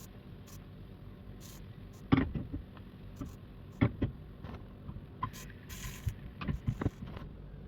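Two sharp knocks, about two and four seconds in, then a run of lighter clicks and taps, over a steady low hum.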